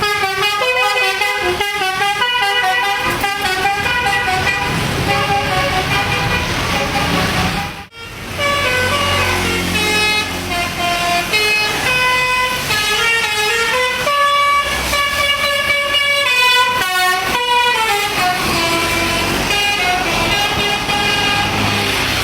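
Bus telolet horn of the basuri kind playing a tune: a run of held horn notes stepping from pitch to pitch, with a brief break about eight seconds in before another tune starts.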